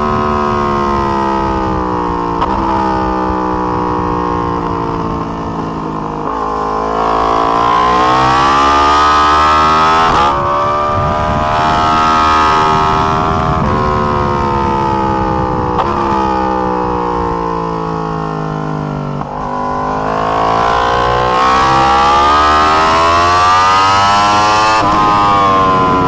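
2020 Yamaha R1's crossplane inline-four at race pace. The engine note climbs and falls through the gears, with the pitch breaking off sharply at each gear change. It drops in steps as the bike slows for corners, then rises again as the rider accelerates out.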